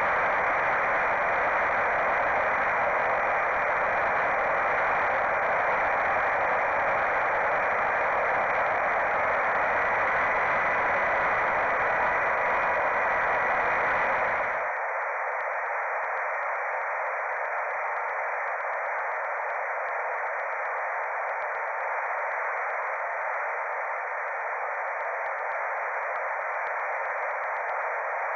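Steady hiss from a small FPV flying wing's Foxeer Arrow camera microphone, sent over the analog video link, with the wind and motor of the flight blended into it. About halfway through, the sound abruptly turns a little quieter and thinner, losing its low end.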